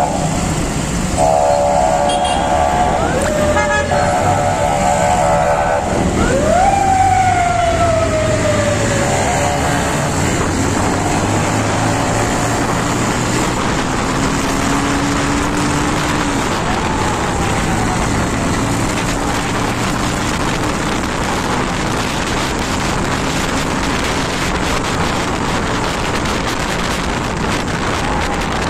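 Moving road traffic with a vehicle horn sounding in long, broken blasts for the first few seconds, then a siren that rises sharply and falls slowly once about six seconds in, over a steady engine rumble and wind noise.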